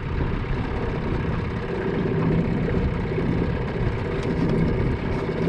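Outboard motor running steadily at cruising speed as an aluminium fishing boat moves across the water, with an even hiss of water and wind beneath a low steady hum.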